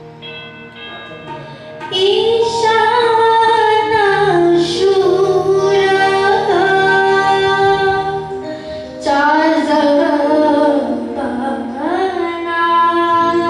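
A young woman singing a Manipuri song into a microphone over electronic keyboard accompaniment. The keyboard plays alone for about two seconds before the voice comes in, and the singing pauses briefly between phrases about nine seconds in.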